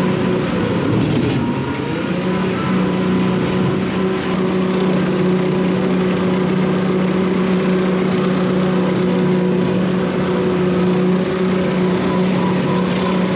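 Tractor engine running steadily under load while pulling a rotary cutter (bush hog) through overgrown brush; its speed sags briefly about a second in and recovers.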